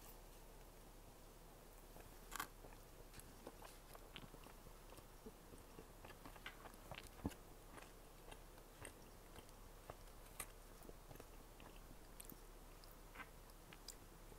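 Faint, close-miked chewing of a doughnut: scattered soft mouth clicks and small crunches, with a couple of louder clicks about two seconds in and near the middle.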